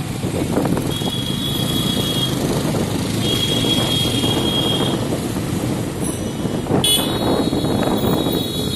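Busy town-street traffic heard from a moving motorbike: a steady run of engine and road noise, with high-pitched vehicle horns honking three times, each for a second or more. A sharp crack about seven seconds in, followed by the longest honk.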